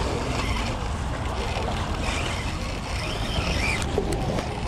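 Wind buffeting the microphone as a steady low rumble, with small waves washing and lapping over shoreline rocks.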